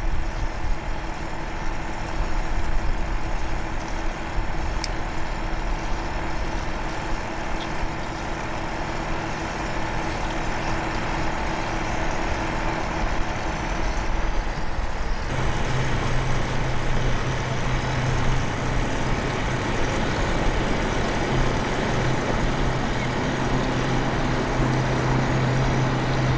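An engine running steadily; about fifteen seconds in its sound shifts to a lower, stronger drone.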